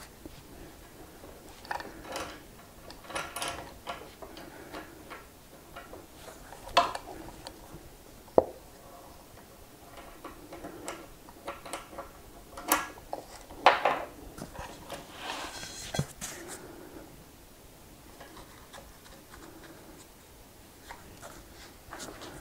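Scattered metallic clicks, clinks and knocks as axle hardware is handled by hand on an electric unicycle's hub-motor wheel, with short bursts of clattering in between.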